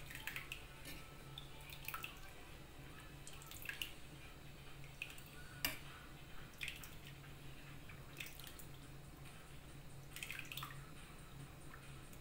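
A metal ladle scooping and stirring thick coconut-milk soup with sago pearls in an enamelled cast-iron pot: liquid drips and pours back off the ladle, with sharp clinks of the ladle against the pot every second or two. A steady low hum runs underneath.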